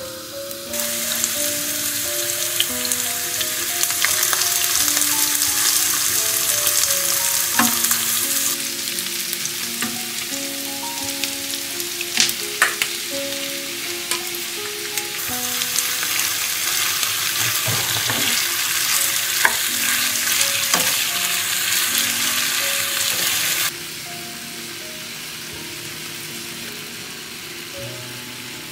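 Chopped onion and ground beef sizzling in hot olive oil in a frying pan, stirred with a wooden spoon, with a few sharp clicks. The sizzle starts about a second in and drops off suddenly near the end.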